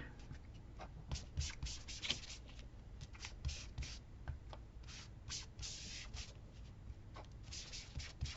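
Distress ink being rubbed onto paper in many short, quick, irregular swiping strokes, to tint the white page an antique yellow.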